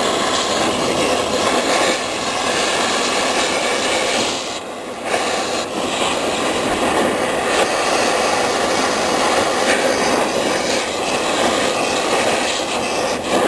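Oxy-acetylene cutting torch running with a steady rushing hiss as it cuts through a steel door hinge, dipping briefly about four and a half seconds in.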